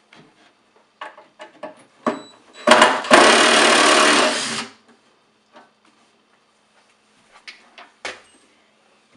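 Cordless drill running to back a screw out of a fireplace mantle: a short burst, then a steady run of about a second and a half. A few light clicks and knocks of handling come before and after it.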